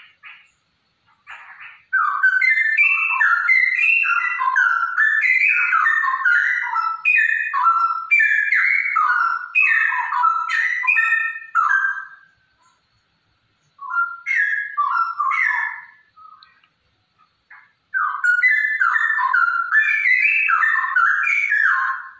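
Female straw-headed bulbul singing: loud, rapid runs of rich, bubbling whistled notes that warble up and down. The song comes in three long bursts, with short pauses a little before the middle and again about two-thirds of the way through.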